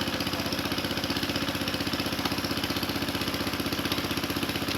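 A small engine running steadily with an even, rapid chugging beat.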